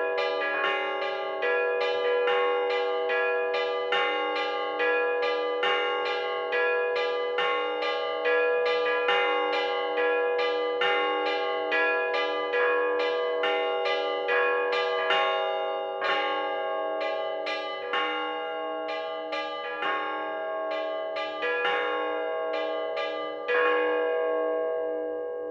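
Russian Orthodox church bells: the middle-sized podzvonnye bells struck in a quick, steady repeating pattern of about three strikes a second, in the Optina monastery style. Near the end one louder stroke lands and the bells are left to ring out and die away.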